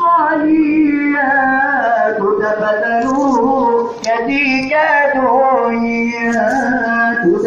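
Swahili qaswida, an Islamic devotional song, sung by a group of men and boys, led by one singer on a microphone. The singing is continuous apart from a brief break between phrases about four seconds in.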